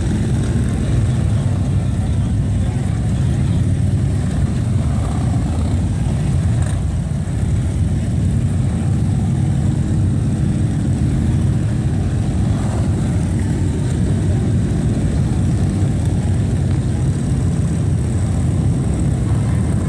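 A column of touring motorcycles riding slowly past, their engines running together as a loud, steady low drone.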